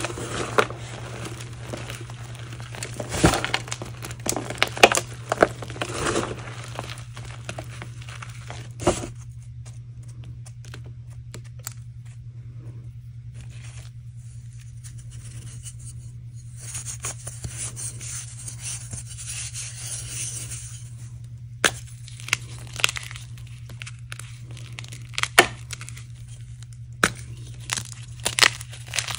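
Dry, long-cured chalk reforms crunching and crumbling as they are squeezed and crushed by hand, with dense gritty crackling for the first several seconds. After a quieter stretch and a soft hiss of crumbling powder, a block is snapped apart in several sharp cracks near the end. A steady low hum runs underneath.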